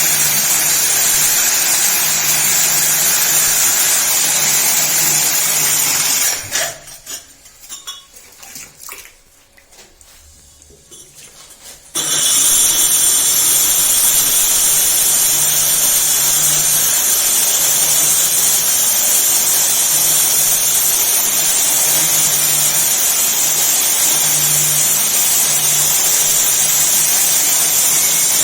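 KEN 6110B diamond core drill running, its water-cooled core bit cutting into concrete with a steady hum and high hiss. About six seconds in the drill stops and is quiet for about five seconds, then starts again abruptly and runs steadily.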